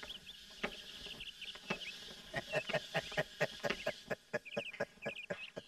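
Chickens clucking in a quick run of short calls, with small birds chirping higher up.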